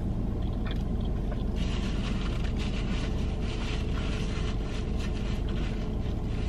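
A person chewing a bite of cheeseburger, soft irregular mouth sounds starting about a second and a half in, over a steady low hum inside a car.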